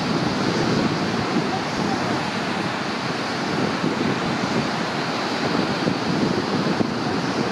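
Lake surf breaking onto the beach in a steady rush, with wind buffeting the microphone.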